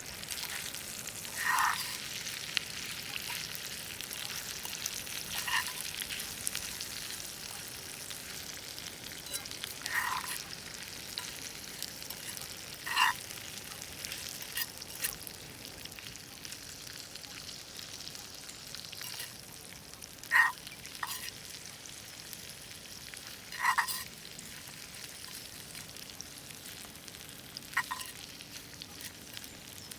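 German potatoes frying in a pan with a steady sizzle. Seven short, louder sounds break through it a few seconds apart.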